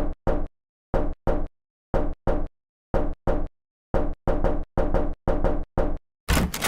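Knocking, as on a door: four double knocks about a second apart, then faster knocking at about four a second, ending in a quick flurry.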